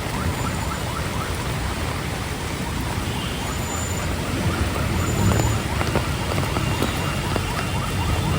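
Heavy rain falling steadily, with the low rumble of road traffic underneath that swells about five seconds in as a vehicle passes.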